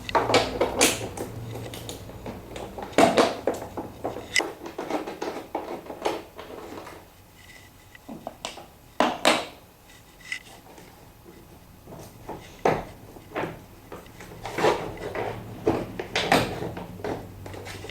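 Scattered clicks, knocks and metallic clatter of a hand tool on bolts and metal parts as the four 7 mm bolts holding a washing machine door to the cabinet are undone and the door is taken off.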